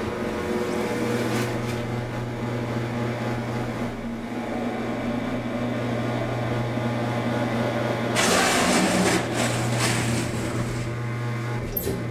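DEVE hydraulic elevator running: a steady low hum from the drive as the car travels, with a brief rushing hiss about eight seconds in and a click near the end as the car reaches the landing.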